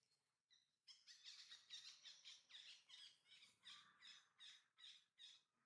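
A bird calling in a faint, rapid series of short squawking notes, about four a second, starting about a second in and running until just before the end.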